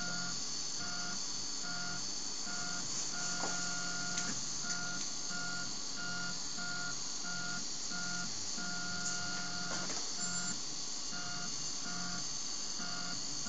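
RepRap 3D printer's stepper motors whining in short stop-start moves, a tone that switches on and off about twice a second, over a steady hiss.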